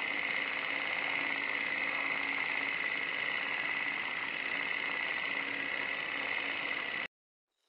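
Steady mechanical whirring hiss with a faint low hum underneath, holding even throughout and then cutting off suddenly about seven seconds in.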